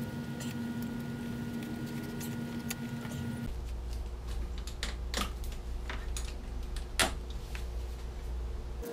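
Hand tools clicking and clinking against metal bolts and brackets as a ratchet and wrench work bolts loose on a radiator's plastic guard. The clicks are irregular, with one sharper clink about seven seconds in.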